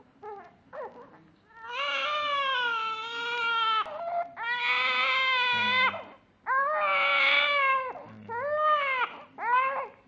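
Newborn baby crying, three long wailing cries followed by two short ones near the end, as it fusses against a pacifier.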